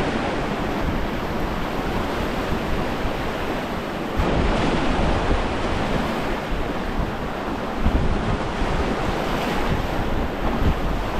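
Strong wind buffeting the microphone: a steady rushing noise with low, gusty rumbles that pick up about four seconds in and again near eight seconds.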